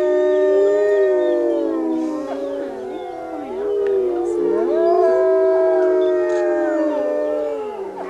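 Wolves howling together in a chorus: several long, overlapping howls held at different pitches. The howls thin to shorter, wavering calls in the middle, then a fresh howl rises about five seconds in.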